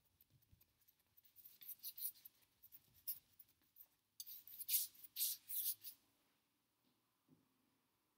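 Bristles of a large paintbrush scratching across a stretched canvas in quick back-and-forth strokes, blending white paint into a blue background. The strokes come in bunches, loudest from about four to six seconds in, then stop.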